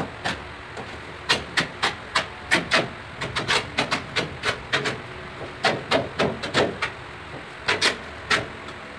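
Steel trowel scraping and tapping on the back of a 30 × 60 cm ceramic tile as cement mortar is spread over it: a run of short, sharp strokes, about two or three a second, irregular, with a brief pause before the last few.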